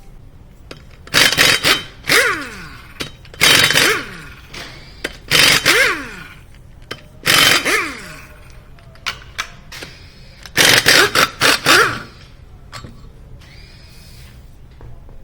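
Handheld power tool run in five short bursts, each about a second or two long, with its motor whine falling in pitch as it spins down after each burst.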